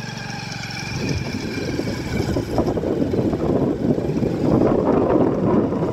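Wind buffeting the microphone on a moving vehicle, most likely a motorcycle, building up and loudest in the second half. It covers the engine's steady hum, which fades out after about two seconds.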